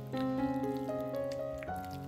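Background music: a melody of held notes that change every half second or so. Under it are faint wet sounds of a wooden spoon stirring a thick zucchini batter.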